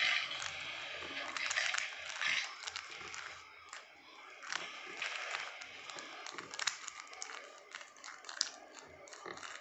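Stickerless plastic 3x3 Rubik's cube being twisted by hand: irregular clicking and rustling of the layers turning, with fingers rubbing the plastic.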